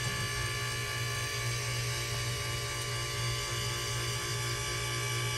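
Older Green Mountain Grills Daniel Boone pellet grill running, a steady low motor hum with fainter steady tones above it. This is most likely the auger drive turning on the zero setting, which runs the auger and nothing else, to push out the jammed, moisture-caked pellets.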